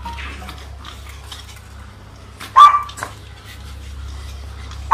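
A Chihuahua gives a single short, sharp yap about two and a half seconds in, with a weaker yelp just after. Faint scattered clicks and a steady low hum run underneath.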